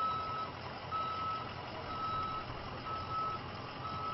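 Ambulance's reversing alarm beeping, a single high tone about once a second, five half-second beeps, over steady vehicle and outdoor noise.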